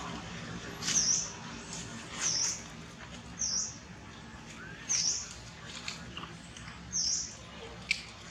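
Five short, high-pitched chirping calls from an animal, coming every second or two, with a sharp click near the end.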